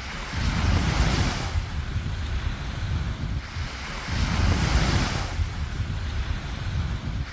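Sea waves breaking on the shore, two swells of surf hiss, about a second in and again at four to five seconds, over a steady low rumble of wind on the microphone.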